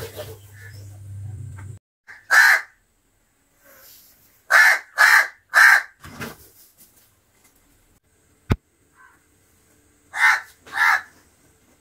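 House crow cawing in harsh calls: one caw about two seconds in, a quick run of three a few seconds later, and two more near the end. A single sharp click falls between the second run and the last pair.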